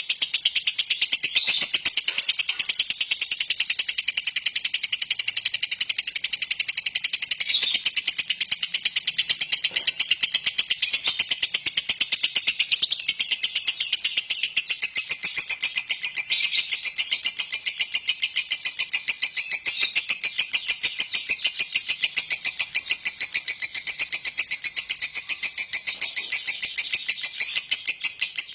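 Lovebird singing a long, unbroken ngekek: a high-pitched, rapid chattering trill that goes on without pausing for breath. This is the extended song that lovebird fanciers prize in 'konslet' birds.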